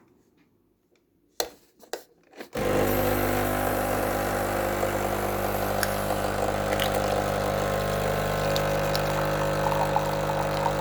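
Nescafé Dolce Gusto Infinissima capsule coffee machine: a few clicks, then its pump starts about two and a half seconds in and runs with a loud, steady hum as it brews.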